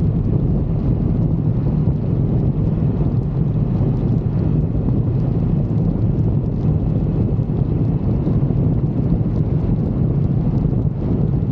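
Motorcycle riding steadily at speed: a constant low engine drone under steady wind noise on the microphone.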